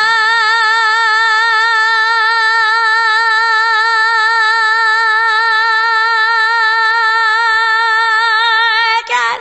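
A girl's voice holding one long sung note with a steady vibrato, unaccompanied once the backing music drops out at the start, the 'I can hold any note longer than you' contest. Near the end the note wavers and breaks off as she runs out of breath.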